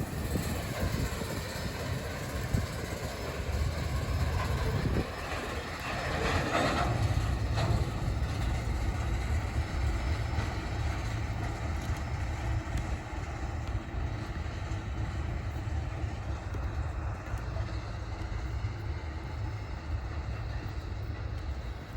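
Train rolling past, a steady low rumble of railcar wheels on the track, with a brief louder, higher-pitched sound about six seconds in.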